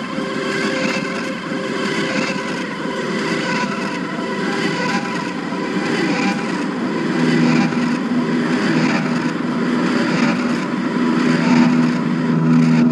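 Electric guitar played through a home-built rotating tape-drum delay whose repeats come out of eight speakers set in a circle inside a lampshade: a dense, smeared wash of overlapping guitar notes. From about halfway a steady low note holds beneath it.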